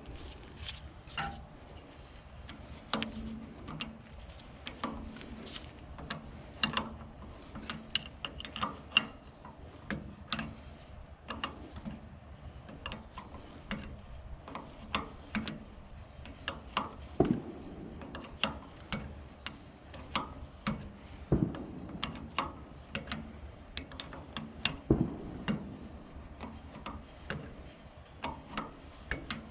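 Irregular metal clicks and taps from hand tools working on a backhoe's hydraulic hose fittings, with a few duller knocks.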